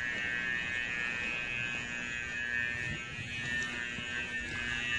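A steady, high-pitched buzzing drone that continues unchanged throughout, with a faint low hum beneath it.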